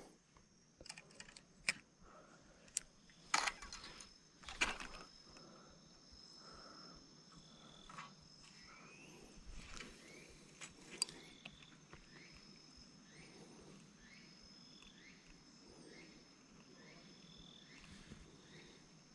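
Insects singing faintly in a steady high drone, with a short chirp repeating about once a second through the second half. A few knocks and rustles come in the first five seconds, loudest about three and a half and four and a half seconds in.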